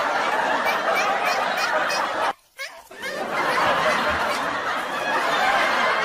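A crowd laughing, a dense wash of many voices at once, with a brief half-second gap about two and a half seconds in.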